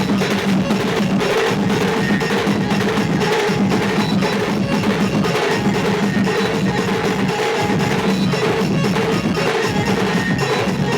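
Loud dance music driven by a fast, dense percussion beat over a sustained low melodic line.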